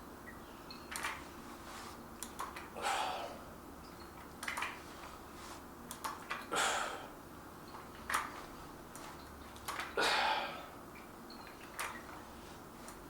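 A person doing dumbbell curls, breathing out hard with each rep, about one breath every two seconds, with small clicks in between.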